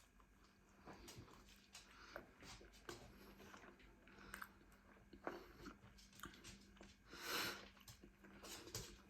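Faint, close-up chewing of food: soft wet mouth clicks and smacks scattered at an irregular pace, with one louder breathy noise lasting about half a second roughly seven seconds in.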